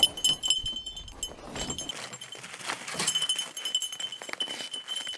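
Dogs' collar hardware jingling and clinking lightly as the beagles move about, with a thin ringing tone that comes and goes.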